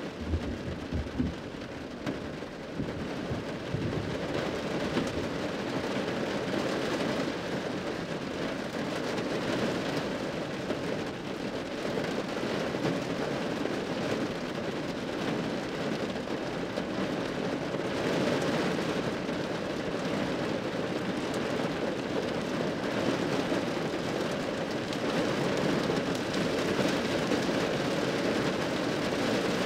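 Hard rain drumming steadily on a roof, a dense even patter. A brief low rumble of thunder comes in the first second or two.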